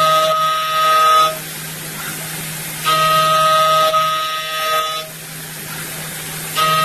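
DMG Mori vertical machining centre cutting a small part: a high, steady whine from the cutter in the cut comes and goes in passes about two seconds long, over a constant low machine hum.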